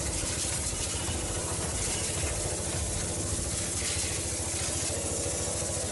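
Pickup truck engine idling steadily with its hood open, a fast even pulsing under a hiss.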